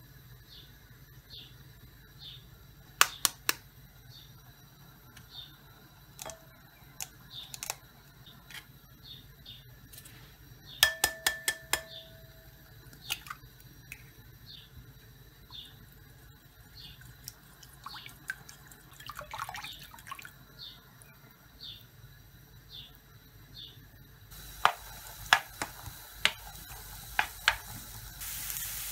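Kitchen preparation sounds: sharp clinks on a glass bowl, including eggs tapped and cracked on its rim with a brief glassy ring, then from about 24 seconds in chopped onions sizzling in a frying pan while a wooden spoon stirs and taps. A faint high chirp repeats about once a second in the background.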